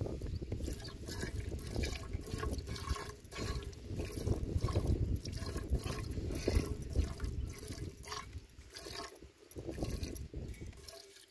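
Milk squirting from a cow's teats into a steel pot under hand milking, a quick, uneven run of short squirts.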